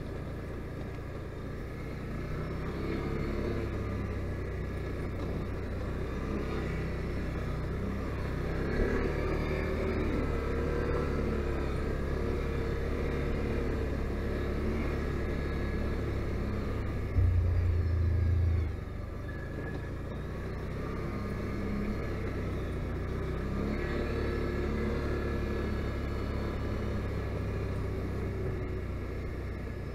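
Can-Am Outlander 570 ATV's V-twin engine running under way, its pitch rising and falling with the throttle. A little past the middle, a louder low rumble lasts about a second and a half.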